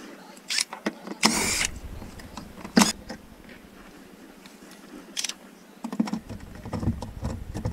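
Interior trim work on a car: sharp clicks and knocks of tools and plastic trim, with a short whir of a cordless drill-driver a little over a second in. A rumbling motor noise builds near the end as the drill-driver works a screw in the roof lining.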